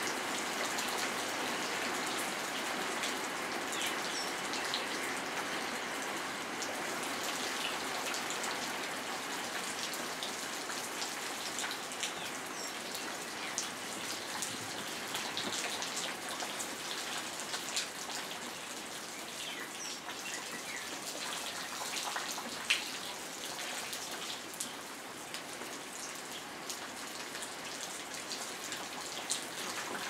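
Steady rain falling, with many separate drops ticking through the hiss of the downpour and one sharper drop hit about three-quarters of the way through.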